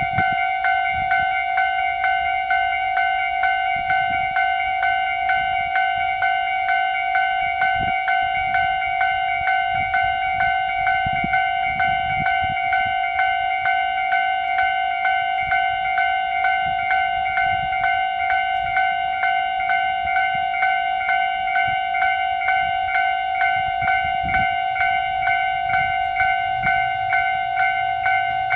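Electronic railway level-crossing warning bell ringing in an even, rapid repeating ding, which signals that the crossing is closed for trains. A low train rumble runs underneath.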